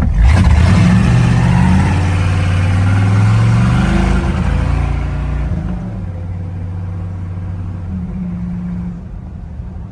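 1973 GMC pickup's engine revving hard at full throttle, its pitch climbing for about four seconds with a loud rushing noise over it, then easing off to a lower, steadier run about halfway through.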